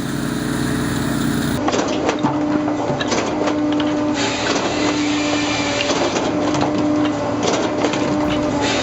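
Firewood-processing machinery running with a steady hum under a dense clatter and cracking of wood being cut and split. Before this, for about the first second and a half, a stump grinder's engine runs under load.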